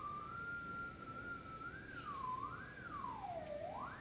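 Homemade theremin giving one pure, whistle-like tone, held nearly steady at first and then swooping slowly up and down in wider and wider swings as a hand moves toward and away from it.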